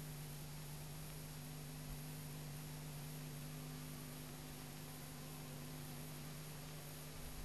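Steady low electrical hum with an even hiss over it: the background noise of a worn VHS soundtrack, with no other sound.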